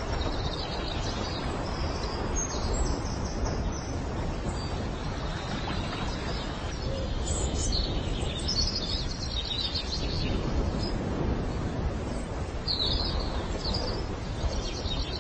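Outdoor ambience: a steady, even rushing noise with small birds chirping in short bursts now and then.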